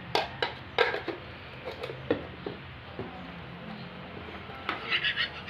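Plastic bowl and lid knocking and clattering as they are handled and set down on a table: a series of light, sharp knocks, then a quick run of lighter clicks near the end.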